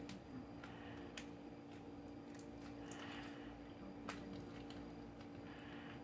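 Slime being worked by hand: faint squishing with scattered sharp clicks and pops, over a steady low electrical hum.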